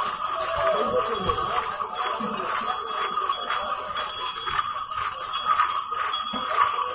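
Small bells on pilgrims' kanwar shoulder poles jingling steadily as the carriers hurry along. In the first second or so, voices call out in the crowd.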